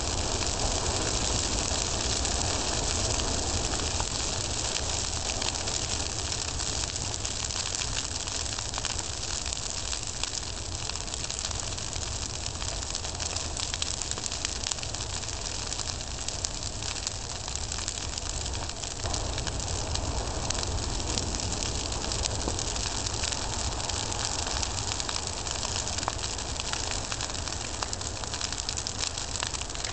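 Large brush-pile fire, lit with gasoline, crackling with a dense run of small pops over a steady hiss, with a low rumble underneath. It eases slightly as the flames die down.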